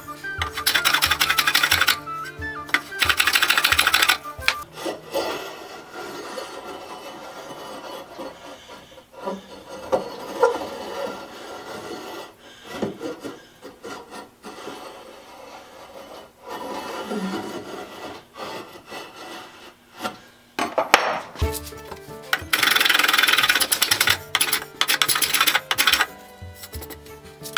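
A tool rasping through wood as a wooden vise chop is cut down to size: a loud stretch at the start, broken briefly, and another long stretch from about three quarters of the way in. In between are quieter knocks and handling noises.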